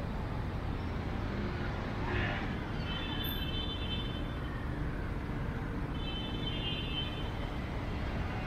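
Steady low rumble of city traffic, with a couple of brief high-pitched sounds over it about three and six seconds in.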